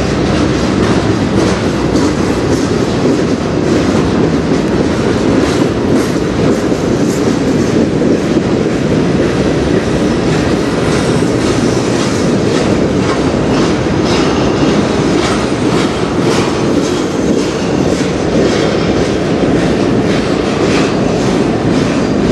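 Freight cars of a manifest train, covered hoppers and centerbeam flatcars, rolling past on the near track: a steady rumble of steel wheels on rail with a run of clickety-clack wheel clicks.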